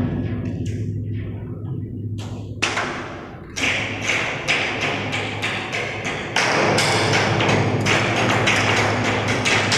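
Rapid repeated knocks and taps over a steady low hum. The knocks begin a few seconds in and come faster and louder from about two-thirds of the way through.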